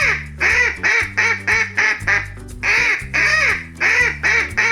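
Duck quacking in two quick runs of short, nasal quacks, over background music.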